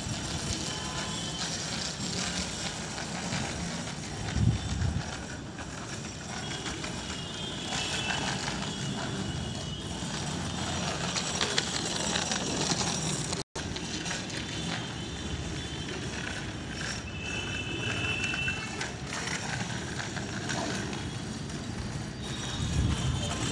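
A child's bicycle with training wheels rolling over tiled paving: a steady rolling noise with scattered clicks.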